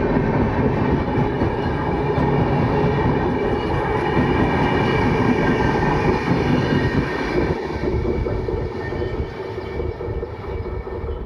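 Passenger train's coaches rolling past slowly, a steady rumble with a faint high-pitched ringing over it, fading over the last few seconds as the train moves away.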